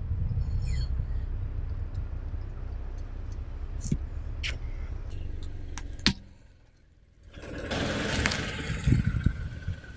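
Car rolling slowly on gritty asphalt: a low engine and tyre rumble with scattered small ticks and cracks. It drops out abruptly about six seconds in, then a louder spell of tyre-on-grit crackle follows.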